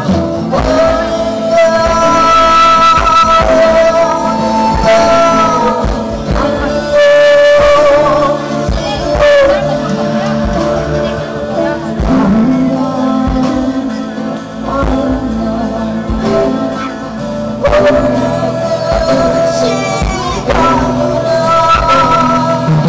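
Live band music through a PA: a woman singing over strummed acoustic guitar, joined by a long Korean zither, a transverse flute and drums.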